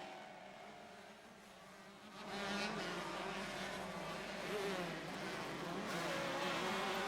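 Two-stroke motocross bike engines racing, faint at first and then louder from about two seconds in, with buzzing revs rising and falling.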